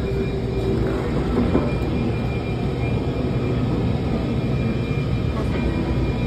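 Washington Metro train running at speed, heard from inside the car: a steady rumble of wheels on rail with a faint, steady high whine.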